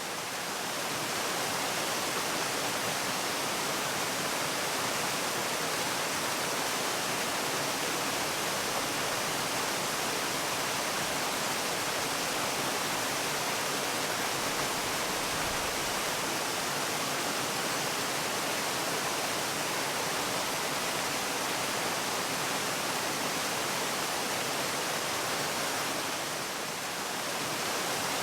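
Steady rushing hiss of a waterfall, an even unbroken wash of falling water, dipping slightly in loudness near the end.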